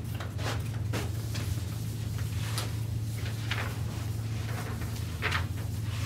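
Whiteboard eraser wiping across the board in a series of irregular swishing strokes, over a steady low hum.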